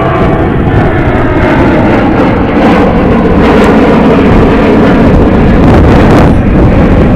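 Jet engines of an Air France Airbus A340 airliner roaring loudly as it passes close by, with wind buffeting the microphone. The roar builds a little over the first couple of seconds and then holds steady.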